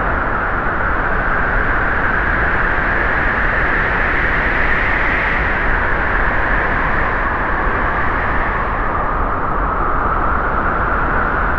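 Steady rushing noise of snowstorm wind, with no distinct tones.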